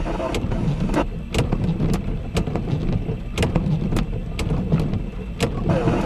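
Rain in a thunderstorm: irregular sharp taps of drops striking close to the microphone, two or three a second, over a low steady rumble.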